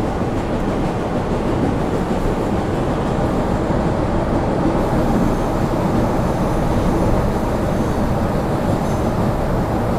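MBTA Red Line subway train running through a tunnel, heard from inside the car: a steady, even rumble of wheels on rail and running gear.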